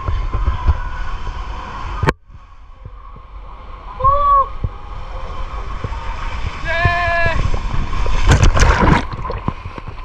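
Water sloshing and splashing over a low rumble, with two short high voice calls in the middle and a loud splashing rush about eight seconds in.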